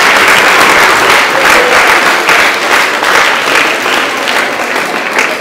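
Audience applauding, many hands clapping steadily, easing off slightly toward the end.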